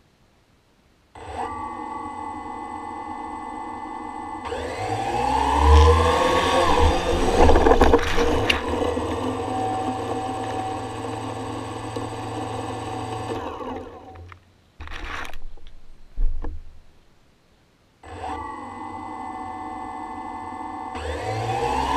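Quadcopter drone's electric motors and propellers, heard from the drone's own camera, start about a second in and run at a steady idle. They spin up with a rising whine, then cut out after about thirteen seconds, with a couple of sharp knocks during a rough, failed take-off. After a short silence the motors start again at idle and begin spinning up near the end.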